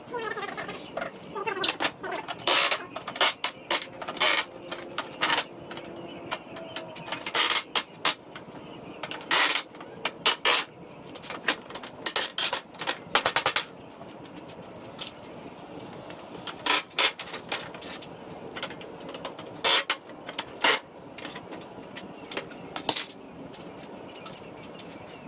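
Wooden pallet being pried apart to free its nailed boards: irregular sharp clinks and knocks of metal on nails and wood, some in quick rattling runs.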